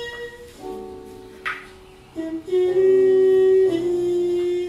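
Music: a slow melody of long held notes, with the loudest and longest note a little under three seconds in.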